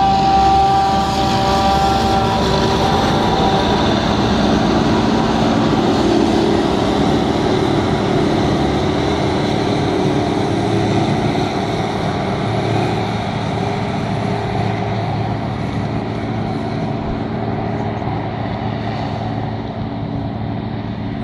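John Deere self-propelled forage harvester chopping maize, with a tractor's engine running alongside: a dense, steady machinery drone. A high whine fades out after about three seconds, and the whole sound gradually grows fainter.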